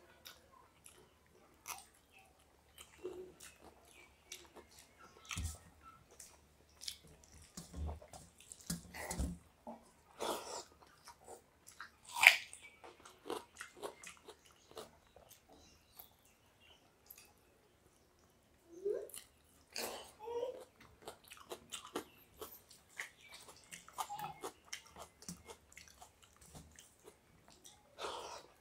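Close-up eating sounds of two people eating watery rice by hand: wet squelching and sloshing as fingers mix rice in water, with chewing, biting and lip smacks in an irregular run of short clicks. One sharper, louder click comes about twelve seconds in.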